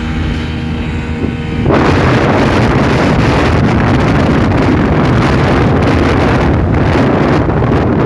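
A speedboat engine drones at a steady pitch. About two seconds in, a loud, sudden rush of wind and water noise swamps it, with wind buffeting the microphone.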